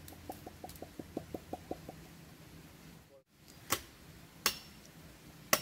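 A quick run of about ten knocks with a clear, woody pitch, some six a second, that a person has just found can be made on wood. After a short break come three sharp, loud strikes about a second apart, like a hatchet chopping wood.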